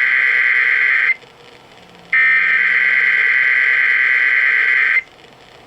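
EAS SAME header data bursts opening a Required Weekly Test: a loud data tone that cuts off about a second in, then after a one-second pause a second burst of about three seconds.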